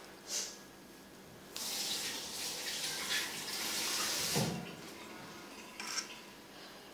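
Running water, like a tap running for about three seconds and then stopping, with a couple of short noises around it.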